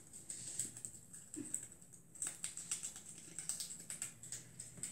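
A gerbil nibbling a bit of food held to it by hand: faint, irregular small clicks, close together.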